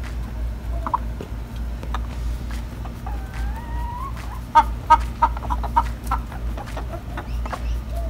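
Domestic hens clucking softly as they feed, with one drawn-out call rising in pitch about three seconds in and a quick run of sharp, louder clucks a little after.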